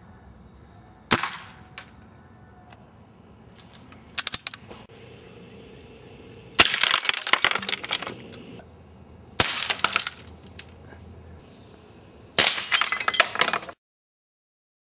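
A modified Crosman 2240 .22 CO2 pellet pistol firing with a sharp crack about a second in, followed by glass beer bottles shattering in three bursts, each a second or so of breaking glass and clinking shards. The sound stops suddenly near the end.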